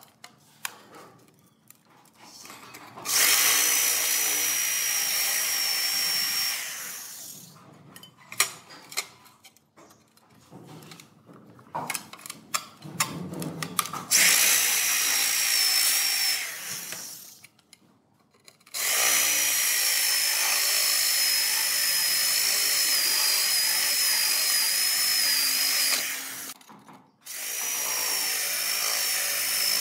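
Electric hand drill with a hole-saw bit cutting a round hole through a ceramic tile, running in four long spells of steady grinding with a high whine. Between spells there are scattered clicks and knocks.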